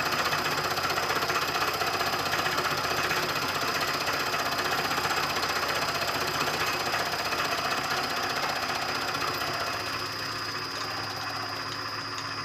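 Milling machine cutting a metal handwheel with a two-flute high-speed steel end mill: a steady rattling cutting noise over the running spindle, with a thin steady high whine. The cut gets a little quieter about ten seconds in.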